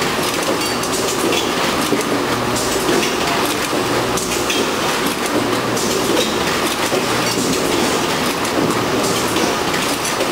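Automated produce packing line running: conveyor, weigher and bagging machinery make a steady mechanical rattle, with many small clicks and a low hum that comes and goes.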